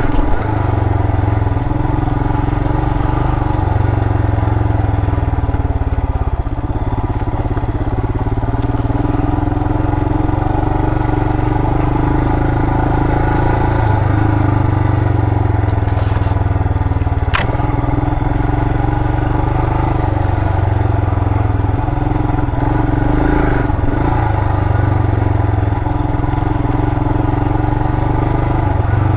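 2020 Royal Enfield Himalayan's single-cylinder engine running steadily as the motorcycle rides a dirt trail, its pitch rising and falling a little with the throttle. There is one sharp click about seventeen seconds in.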